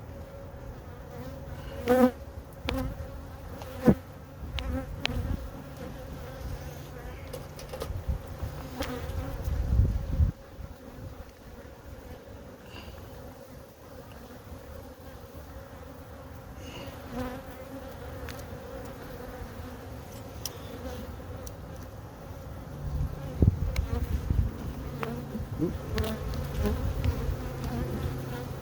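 Honeybees buzzing steadily around an open hive. A few sharp knocks sound over the buzz, loudest about two and four seconds in, and there are stretches of low rumbling noise around ten seconds in and again near the end.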